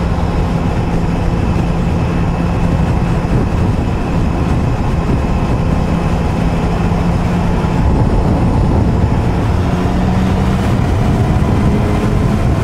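2007 Triumph Sprint ST 1050's three-cylinder engine running steadily at highway cruising speed, with wind and road noise, its note rising a little near the end.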